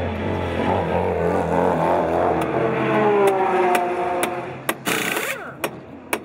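Race car engine running, its pitch falling away about halfway through. Near the end a pneumatic wheel gun fires a short burst, followed by a few sharp metallic clicks, as a wheel is changed at a pit stop.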